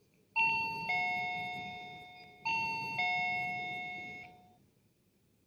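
Electronic ding-dong chime of a video door intercom system, signalling a call. It sounds twice, about two seconds apart, each time a higher note stepping down to a lower one and fading out.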